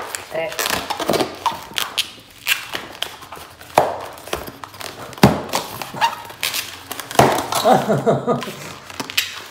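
Latex 260 modelling balloon being handled and twisted: a string of sharp taps and thunks, with short rubbery squeaks early on and again near the end.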